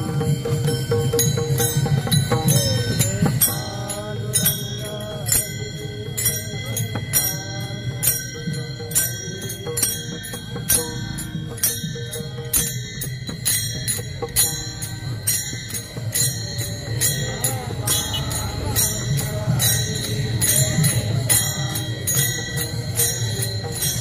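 Warkari kirtan music: small hand cymbals (taal) ringing out a steady, fast beat over a drum, with voices chanting at times.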